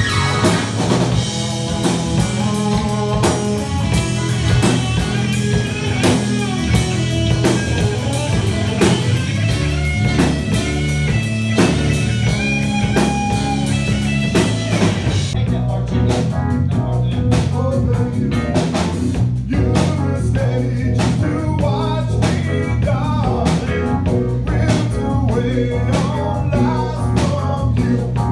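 Yacht-rock band playing live: drum kit, electric bass, electric guitar and keyboards, with singing. About halfway through, the sound abruptly loses its treble and turns duller.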